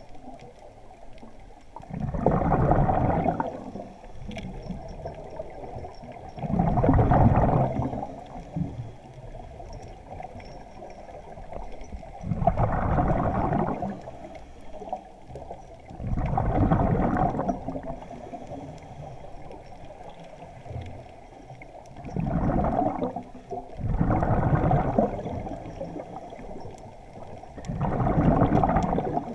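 A scuba diver's exhaled breath bubbling out of the regulator underwater, a burst of about a second and a half every four to five seconds, seven times, with quieter water noise between the breaths.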